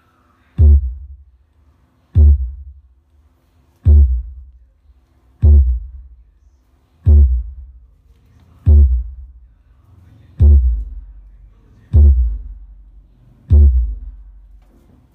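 Deep bass kicks from music played through a JBL subwoofer: nine low rumbling hits, one about every second and a half, each starting with a short click and dying away over about a second. It is a low bass level, a low rumble of the subwoofer.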